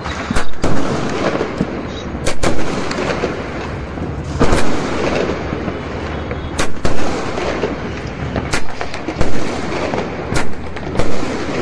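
Fireworks going off across a city: about a dozen sharp bangs, some in quick pairs, over a constant background din of many more distant firecrackers and fireworks.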